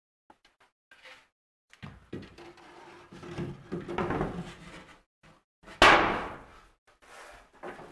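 A loose plywood floor board scraping and rubbing as it is slid down into a plywood cockpit well. About six seconds in it drops flat with one loud wooden slap.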